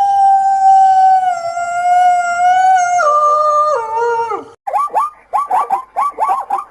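An animal's long, steady howl that drops in pitch in two steps before breaking off, followed by a quick run of short high yelps, about three or four a second.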